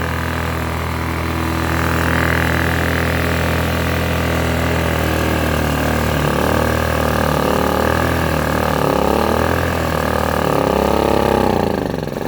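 Small petrol engine of a Blackridge BRG 800 inverter generator running, steady at first, then from about halfway its pitch wavers up and down as it surges, with a sharp dip and recovery near the end. The surging comes from stale, dirty fuel, which is the owner's own reckoning.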